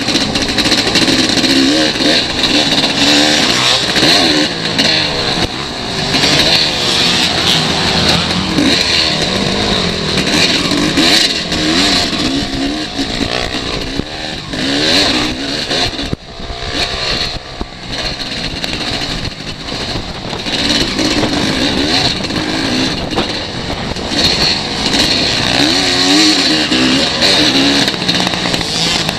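Motocross bike engine revving hard and rising and falling in pitch as it runs up through the gears, heard from the bike's own camera with wind rushing over the microphone. The throttle drops off briefly about halfway through, then the revving picks up again.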